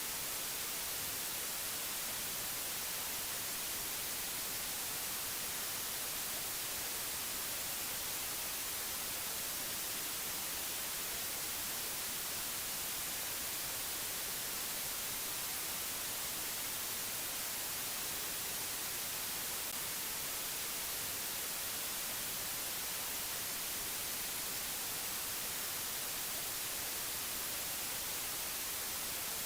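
Steady, unchanging hiss of white noise, brightest in the high frequencies, with no other sound.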